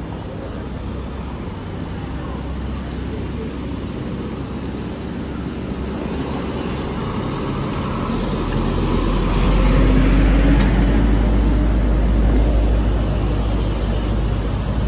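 Street traffic with a box truck's engine running close by, growing louder as it drives through the intersection and loudest a little past the middle. A van passes close near the end.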